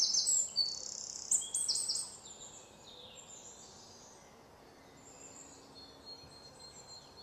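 Birds chirping and calling, loudest in the first two seconds, then fading to faint background calls.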